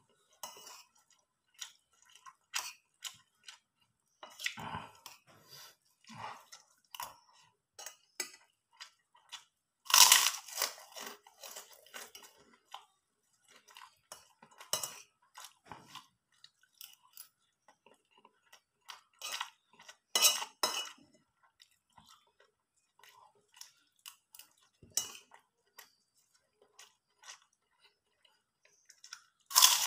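A person eating: a spoon clicking and scraping on a plate, mixed with chewing and the crunch of fried crackers (krupuk) being bitten. The sounds come as scattered short clicks and crackles, with louder bursts about ten and twenty seconds in and again near the end.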